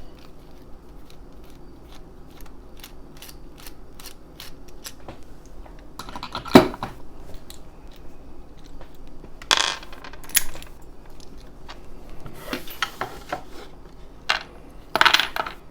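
Small stamped-metal padlock being handled and worked apart with tools: a run of light metallic clicks, then several sharper clinks and clanks of metal parts. The loudest comes about six and a half seconds in.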